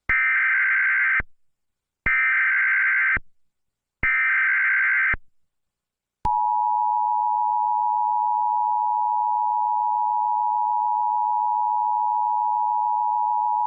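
Emergency Alert System alert tones: three short bursts of SAME header data about two seconds apart, then the steady two-tone EAS attention signal, which starts about six seconds in and holds. The sequence announces a National Weather Service tornado warning.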